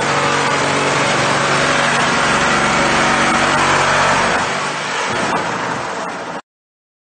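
Handheld power tool running under load as it cuts through a Land Rover's roof pillar: a steady motor hum under a harsh cutting noise. The low hum drops away about four and a half seconds in, and the sound eases before cutting off suddenly near the end.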